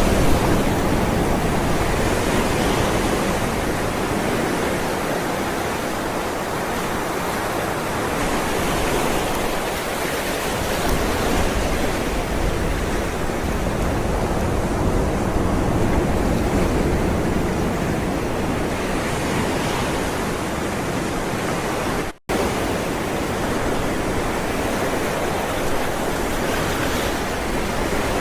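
Ocean waves rolling onto the shore: continuous surf that swells and eases slowly. About three-quarters of the way through it drops out for a split second.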